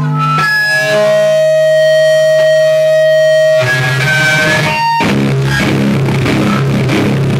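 Live electric guitar music: held, droning guitar notes for about three seconds, then a rougher, noisier stretch. About five seconds in, the drum kit comes in and the band plays loud and dense in a steady rhythm.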